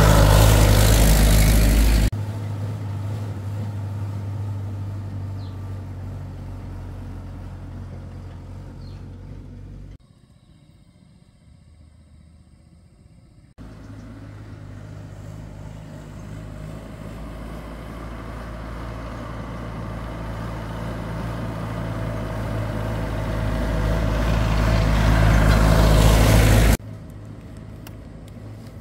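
Homemade truck's engine running at steady revs in several edited clips: loud at first and fading away, a quieter stretch about ten seconds in, then growing steadily louder as the truck approaches until it cuts off abruptly near the end.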